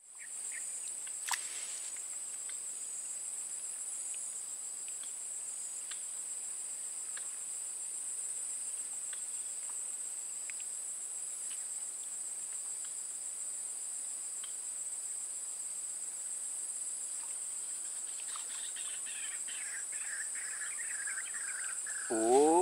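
Steady high-pitched chirring of insects. A louder, sliding pitched sound comes in just at the end.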